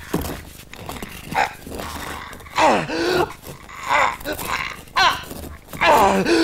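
A man's strained grunts and groans of effort, as from pushing a heavy boulder uphill. Several loud pitched cries bend up and down in pitch about a second apart, with heavy breathing between them.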